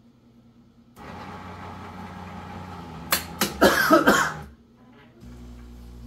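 A person coughs in a short fit, a few harsh coughs in quick succession about three to four seconds in. Beneath them a steady whirring hum starts about a second in and stops just after the coughing.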